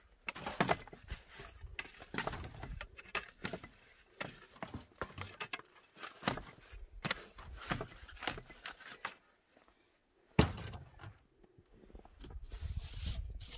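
A wooden stick poking and pushing kitchen scraps into a worm bin: a string of short knocks and scrapes, with one sharp knock about ten seconds in. Near the end, rustling as the scraps are spread by a gloved hand.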